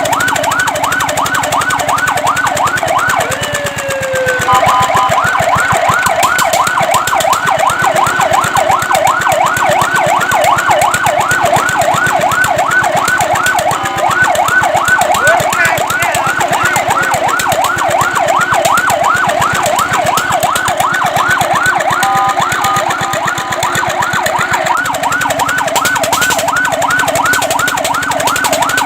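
Fire truck siren sounding a fast yelp, quick rising wails several times a second. It breaks briefly into a falling glide and a steady stuttering tone about four seconds in, and into a stuttering tone again about 22 seconds in, before returning to the yelp.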